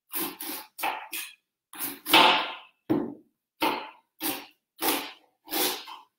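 Kitchen knife slicing a raw green cabbage into thin shreds on a wooden butcher-block board: a regular run of separate cutting strokes, about one and a half a second.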